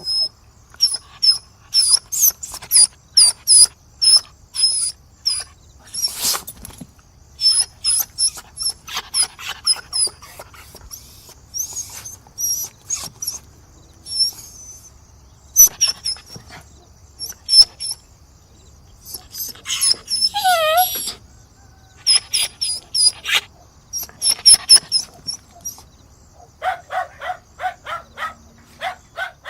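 Dogs barking: quick runs of short, sharp barks, with a longer, falling yelp about two-thirds of the way through and a steady run of lower barks, about three or four a second, near the end.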